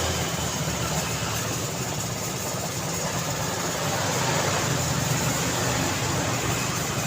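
Street traffic ambience: a steady wash of vehicle engines running and idling, with the hum of traffic throughout.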